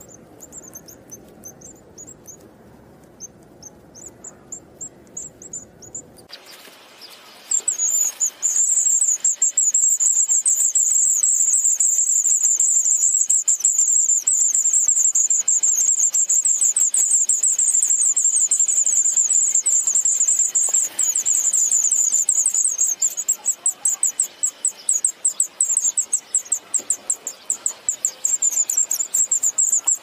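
White wagtail nestlings begging: a fast, unbroken run of thin, high-pitched calls, loud and continuous from about seven seconds in, with only faint scattered high cheeps before that.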